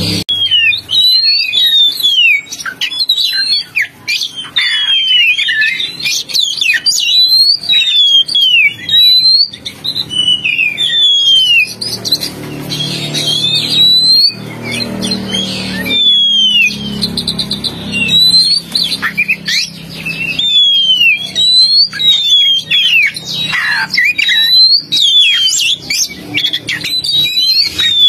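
Oriental magpie-robin (kacer) song used as a lure call: a rapid, varied run of clear whistles, most of them sliding down in pitch, repeated almost without pause.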